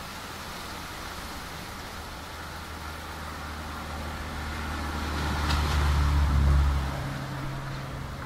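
A motor vehicle's engine drone over traffic noise. It grows louder to a peak about six and a half seconds in, then drops off abruptly.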